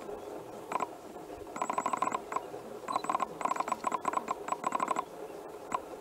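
An animal's rapid trilling calls, repeated in short bursts of about half a second.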